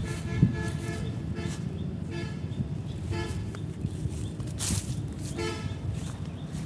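Short horn toots, about five spread across the few seconds, each a brief flat-pitched tone, over a steady low rumble. A brief rustle comes a little past halfway.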